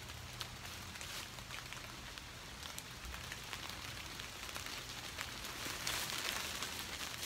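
Steady rain falling on trees and fallen leaves, with many small drops tapping. About six seconds in, a louder rustle of footsteps through the wet fallen leaves.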